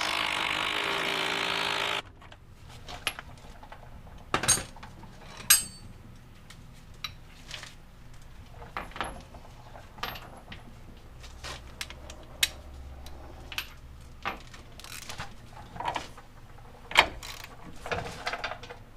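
Power tool running steadily for about two seconds as it spins a 24 mm nut on, then stopping. Scattered sharp clicks and knocks of tools and parts being handled follow.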